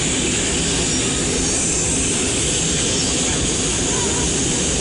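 Steady roar of an airliner's engines and rushing air, heard inside the passenger cabin in flight.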